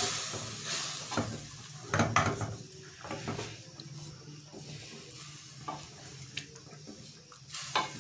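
Wooden spatula stirring and scraping chicken karahi in a steel pot, knocking against the pot several times at irregular moments, loudest about two seconds in and near the end. Under it is a faint sizzle of the curry cooking on high heat.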